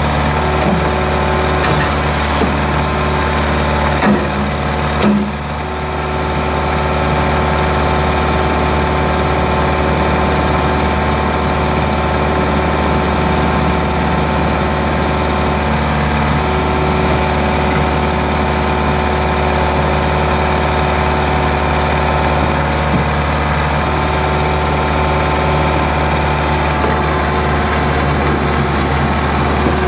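2006 LeeBoy 8515 asphalt paver's diesel engine running steadily at idle, with two short knocks about four and five seconds in.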